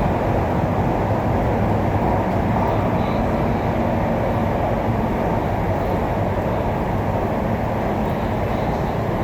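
MTR East Rail Line electric train running at steady speed, an even rumble of wheels on rails and running gear.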